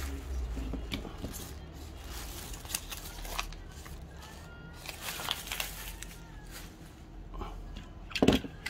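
Small die-cast toy cars being handled and set down: scattered light clicks and taps, with a louder clatter of knocks near the end.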